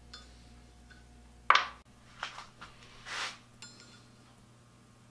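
A small steel rivet handled against the top of a steel rivet staking anvil while its head is set into the anvil's rounded pocket: one sharp metal knock about a second and a half in, then a few soft scrapes and light clicks.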